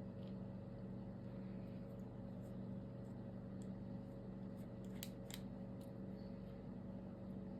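Faint, sharp clicks and ticks of small precision tools being handled, most clearly two about five seconds in, over a steady low electrical hum.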